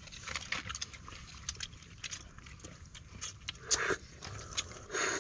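People eating with their hands: scattered soft clicks of chewing, lip smacks and slurping, with a couple of brief louder mouth sounds near the end.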